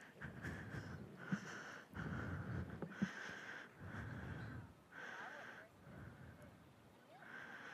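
A person breathing close to the microphone: faint rushes of air that come and go about every second.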